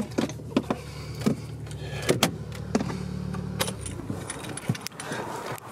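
A car engine idling with a steady low hum while the driver gets out, with sharp clicks and knocks from the door and handling. The hum stops suddenly about two-thirds of the way through.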